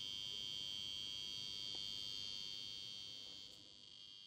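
Gas-leak alarm's piezo buzzer giving a steady high-pitched tone that fades out near the end.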